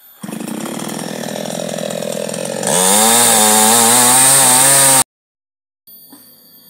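Chainsaw running, then opened up to full throttle about two and a half seconds in, its pitch wavering as it bites into wood. It cuts off abruptly about five seconds in.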